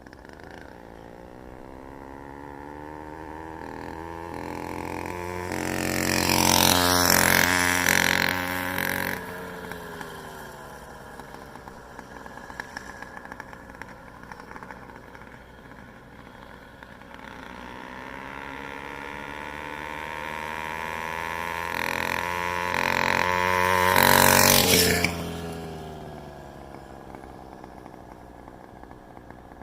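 A motorized bicycle's small engine passes by twice. Each time it grows louder as it approaches, then drops in pitch and fades as it goes away.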